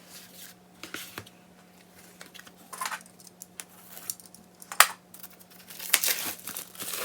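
Crinkling and rustling of album packaging and photocards being handled, in short scattered bursts, with a sharp click about five seconds in and a denser run of crinkling near the end.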